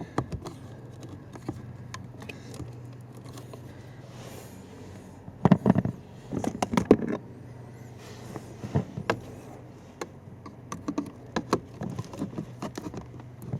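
Scattered clicks, knocks and rattles of hands working a plastic electrical connector and screwdriver at a Toyota Sequoia's blower motor under the dash, unplugging the motor, over a faint steady low hum.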